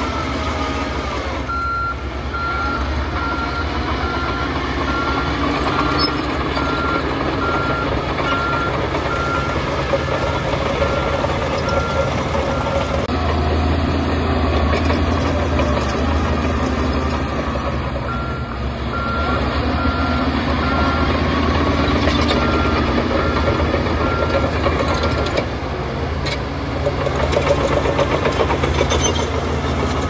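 Crawler bulldozer's diesel engine running steadily while its reversing alarm beeps at a steady pitch, about two beeps a second. The beeping runs for most of the first half, stops for a few seconds, then resumes for several more seconds.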